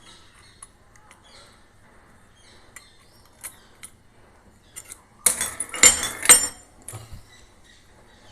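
Light metallic clicks and taps, then a loud clattering of clinks about five seconds in, from handling the just-removed faucet valve stem and tools.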